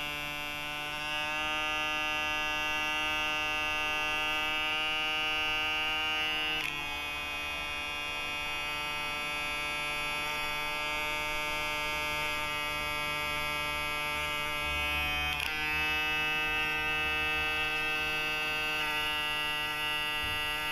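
Lim Hair Devourer cordless hair clipper running with a new blade fitted: a steady motor buzz with many overtones, its pitch shifting slightly a couple of times. The clipper is loud, but that is normal for this model, not a fault.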